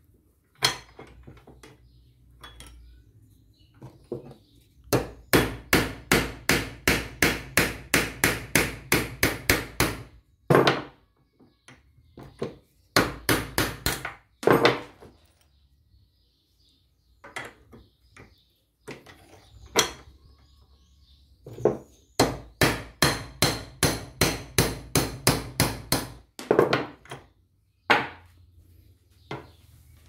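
Hammer blows on metal at a bench vise, knocking a steel pin out of a washing machine gear coupling piece. The blows come in three quick runs of about two to three a second, with a few single knocks between them.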